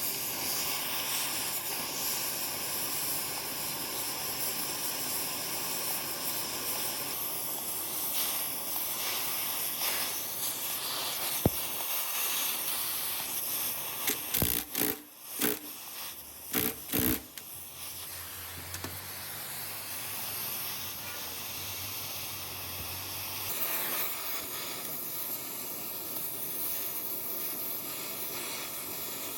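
A steady hiss, with one sharp click about eleven seconds in and a cluster of several knocks around the middle.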